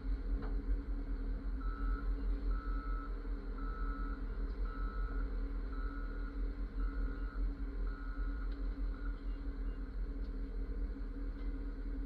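Wheel loader's diesel engine running steadily as it pushes a pickup truck along. A high electronic warning beeper sounds about once a second, starting a second or two in and stopping past the middle.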